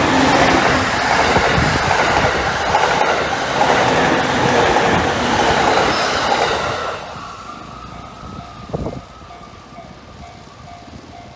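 A Takasaki Line train passing over a level crossing, a loud rush of wheels clacking on the rails that fades away about seven seconds in. Once the train has gone, the crossing's warning bell is heard ringing as a faint repeating clang, with a brief knock about nine seconds in.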